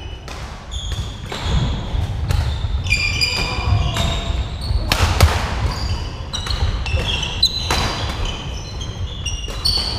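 Badminton rally: rackets hitting the shuttlecock in sharp smacks, one to two a second, with sports shoes squeaking on the wooden court floor between the hits.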